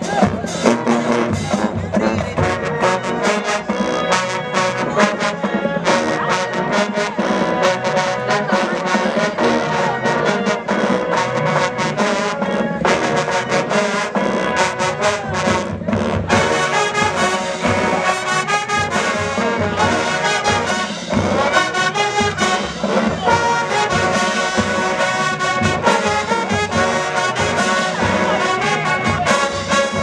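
Marching band playing a brass-heavy tune with sousaphones, trombones and trumpets over a steady beat.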